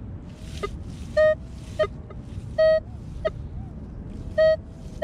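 Minelab Equinox metal detector giving target tones as its coil is swept over the ground: three short beeps at one mid pitch about a second and a half apart, with shorter blips between them, over a faint steady threshold tone. The signals mark a deeper target, a wheat cent, beside a freshly dug hole.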